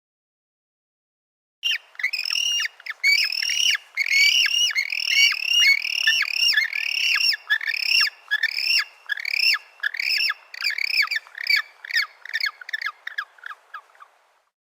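Penguin calling: a fast run of short chirps that rise and fall in pitch, two or three a second. It starts about a second and a half in and goes on for some twelve seconds, thinning out near the end.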